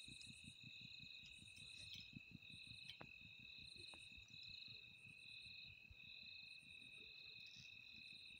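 Crickets chirping: two steady high trills at different pitches, with a shorter, higher chirp repeating about once a second. A faint rapid low patter runs underneath.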